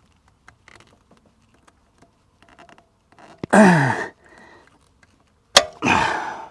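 A man grunting hard twice with effort, each grunt falling in pitch, as he strains at a tight oil filter with channel-lock pliers. Faint clicks of the pliers come before the first grunt, and a sharp click just before the second.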